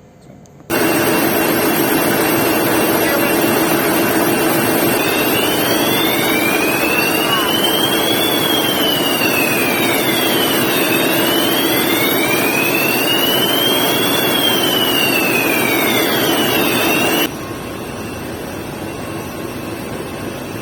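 Ship's alarm sounding during an alarm test: a loud, harsh continuous ring cuts in suddenly just under a second in, with a wailing tone over it that rises and falls twice, then the alarm cuts off abruptly near the end, leaving a lower steady noise.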